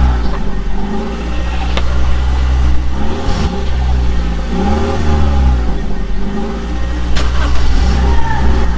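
Engine sound with a steady low hum and a pitch that revs up and back down about every one and a half to two seconds, with a few light clicks.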